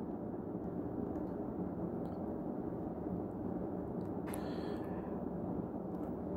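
Quiet room tone: a steady low hum and faint hiss, with a brief soft rush of noise about four seconds in.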